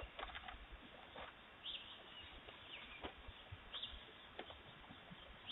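A few short bird chirps, faint and spaced a second or more apart, over a quiet outdoor background, picked up through a doorbell camera's microphone.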